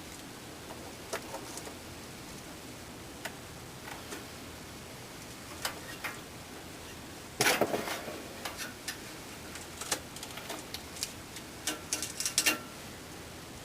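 Metal hemostat clicking and scraping inside a wall outlet box as it probes and pulls out dead bird remains: scattered light clicks, a louder scraping rattle lasting about a second, and another quick run of clicks near the end.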